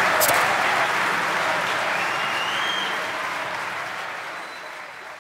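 Audience applauding, the clapping gradually fading out.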